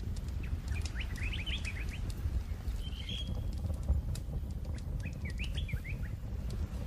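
Birds chirping: two flurries of quick short chirps, near the start and again about five seconds in, with a single longer call between them. A steady low rumble runs underneath.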